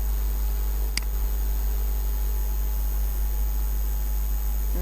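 Steady low electrical mains hum with faint high-pitched steady whine tones, and a single sharp click about a second in.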